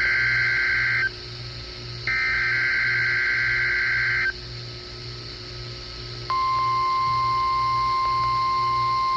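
NOAA Weather Radio weekly test from station KEC80: the end of one SAME digital header burst, a second burst of about two seconds, a short pause, then the steady 1050 Hz warning alarm tone, which starts about six seconds in and holds.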